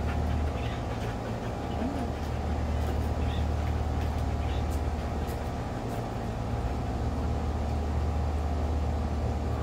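Steady low mechanical hum, such as a motor or engine running, holding at one pitch throughout, with a few faint light clicks in the first half.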